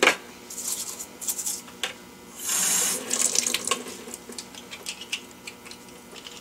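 A soft toothbrush scrubbing a small plastic AeroGarden pump part over a kitchen sink, in short scratchy strokes with some knocks. About two and a half seconds in, a short gush of tap water runs for under a second.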